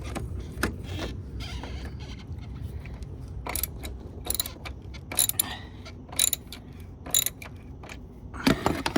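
Ratchet wrench backing out a tight E16 external-Torx bolt, clicking in short runs about once a second from about three and a half seconds in.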